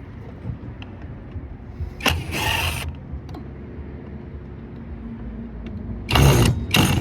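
Power drill-driver running in short bursts, driving screws out: one burst about two seconds in and two louder ones near the end. A steady low hum runs underneath.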